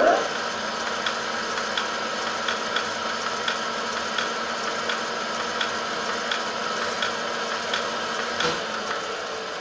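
Lathe starting up and running steadily with a Setra 315 bus rear hub spinning in it. It is turning freely for a dial-indicator runout check, not cutting. A light tick repeats about every three-quarters of a second over the machine's steady running.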